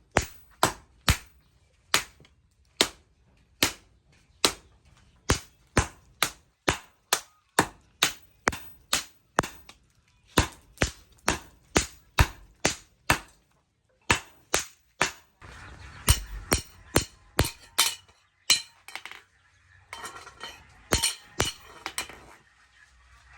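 Hammer blows on leaf-spring steel at an anvil during forging: a long run of sharp strikes, about two to three a second, that breaks off briefly twice.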